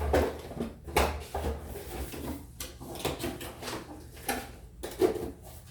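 Motherboard packaging being handled: irregular rustling of the cardboard box and anti-static bag, with sharp knocks about a second in and near the end.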